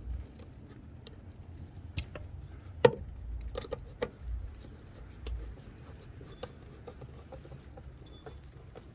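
Scattered small clicks and taps of hand work on a plastic brake-light housing as a Phillips screw is started by hand and turned with a screwdriver; the loudest is a sharp click about three seconds in, with a few more just after.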